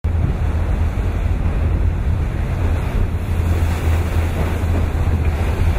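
Wind buffeting the microphone on the bow of a moving boat, a steady loud low rumble, over the rush of choppy sea water.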